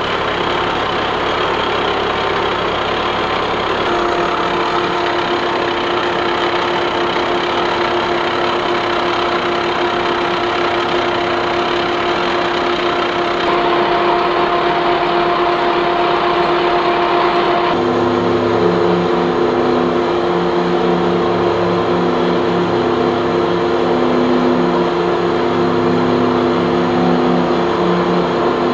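Lucas horizontal boring mill face-milling a heat exchanger plate: a steady machine drone from the spindle drive with the face mill cutting across the plate's rusty, painted surface. A few seconds in a steady higher hum sets in, and past the middle a low note starts to come and go unevenly.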